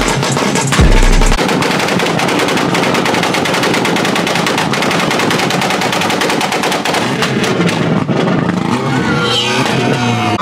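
Car engine revved hard while stationary, its exhaust crackling in a rapid machine-gun string of pops and bangs. Crowd whooping and cheering comes in near the end.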